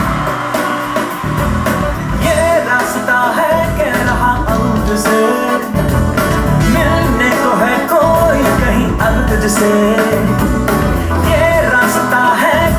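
A song playing, with a melody that wavers like a singing voice over guitar and a deep, pulsing bass line.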